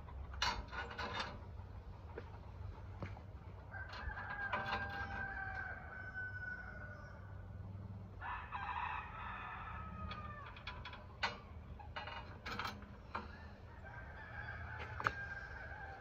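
A rooster crowing a few times in long, drawn-out calls. In between come sharp metallic clicks and clinks from a sawmill band blade being worked off its wheels.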